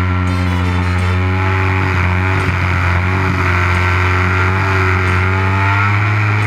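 Stunt RC model aeroplane's engine and propeller running at high power, heard up close from on board. The pitch sags slightly a couple of seconds in during the manoeuvre and picks up again near the end.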